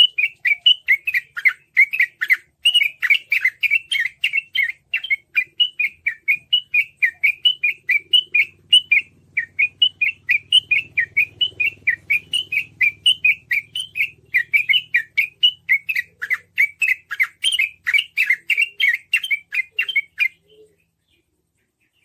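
Yellow-vented bulbul (trucukan) singing a fast, unbroken run of short chirping notes, about four a second, in the rapid 'ropel' style used as a lure to set other bulbuls singing. The song stops near the end.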